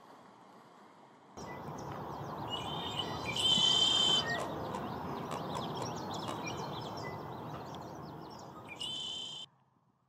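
Male red-winged blackbird singing over a steady background rush. A loud trilled song phrase comes about three seconds in, short chip notes follow, and a second trill near the end is cut off abruptly.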